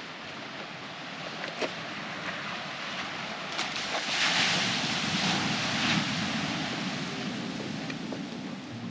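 Ocean waves washing onto a beach, swelling to a louder surge about four seconds in, with wind buffeting the microphone.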